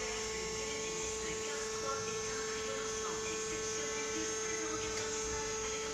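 Rachner R 1000 pile turner's drive running with a steady hum while its platform tilts back down toward level.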